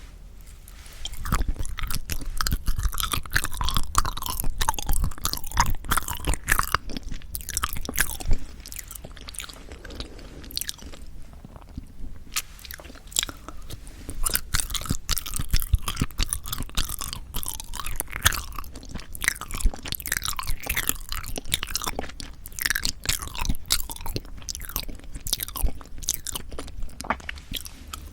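Chewing of soft sweet red bean jelly (yanggaeng): a long run of close, clicking mouth sounds, easing off into a quieter stretch about nine seconds in before picking up again.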